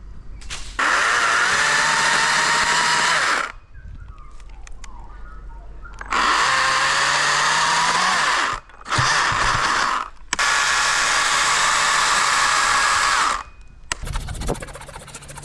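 Chainsaw cutting through an elm stem in four bursts of about one to three seconds each, each starting and stopping abruptly.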